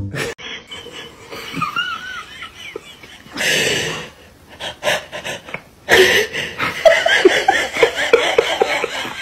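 Laughter with wheezing breaths, coming in several irregular bursts, the densest and loudest run in the last three seconds.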